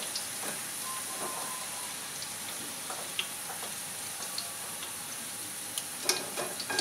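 French fries deep-frying in hot oil: a steady sizzle with scattered small crackles. A few sharper clicks come near the end.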